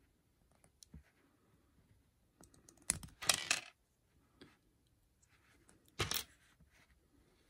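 Small plastic LEGO plates clicking and being pressed together by hand. There are scattered light clicks, with louder bursts of plastic clatter about three seconds in and again about six seconds in.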